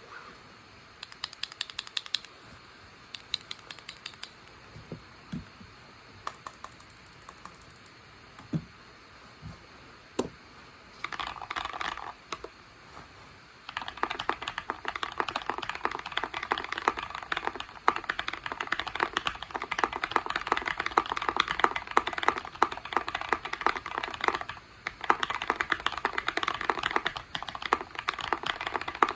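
Tofu60 mechanical keyboard with a brass plate and PE foam mod being typed on. It starts with a few short bursts of keystrokes and some lower knocks, then settles into steady, fast typing.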